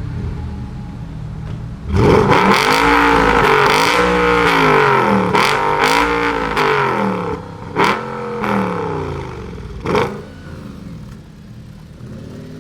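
A supercar's engine idling, then revved hard in about five quick blips, pitch rising and falling each time. Sharp exhaust pops follow as the revs drop, before it settles back to idle.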